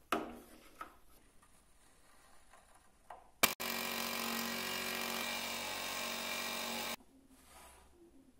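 Scroll saw starting with a click about three and a half seconds in, then running steadily as it cuts a small block of hardwood, and stopping suddenly about a second and a half before the end. Before it, a knock of wood set down on a bench.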